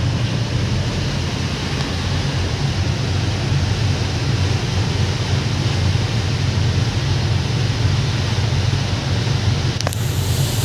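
Steady low engine drone under a constant rushing noise on board a moving passenger ferry, with a short click near the end.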